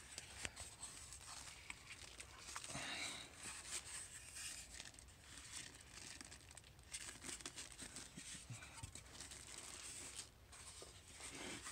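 Faint crinkling of plastic wrap and rubbing of polystyrene foam packing, with scattered small clicks, as a plastic-wrapped power inverter is worked out of its foam end caps.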